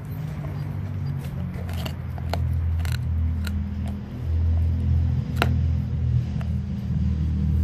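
Background music with a heavy low bass, over which a dog gnaws a whitetail deer leg: several sharp crunching cracks of teeth on bone, the loudest a little past five seconds in.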